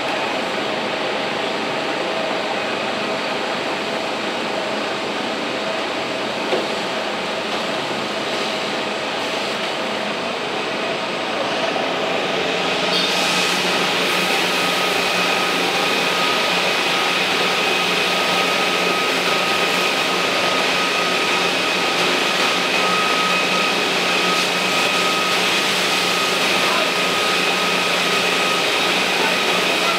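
Steady drone of a fire engine and its equipment running, with a steady whine over it; about 13 s in it becomes louder and brighter.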